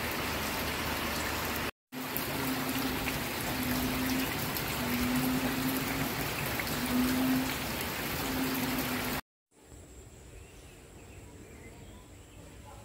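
Steady rushing hiss of water, with a low droning note that comes and goes five times. About nine seconds in it cuts off, leaving a much quieter outdoor background with a faint steady high whine.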